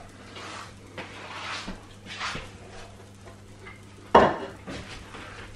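Light clatter of crockery and utensils being handled, with a sharper knock about four seconds in, over a low steady hum.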